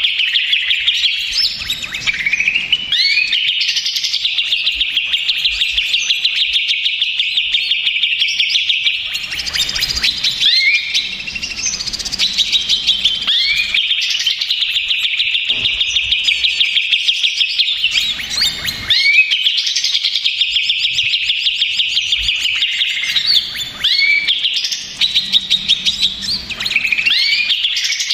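Green leafbird (cucak ijo) singing an unbroken, rapid chattering song of fast high trills, with quick upward-sweeping notes every few seconds. It is the noisy, agitated song that the title calls 'ribut' and 'stres', the kind played as a lure to provoke other cucak ijo into singing.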